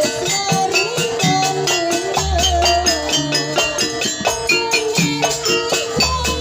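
Traditional Indonesian dance music playing loudly: dense percussion and stacked ringing notes under a wavering melody line, with a deep low note coming in twice, a few seconds apart.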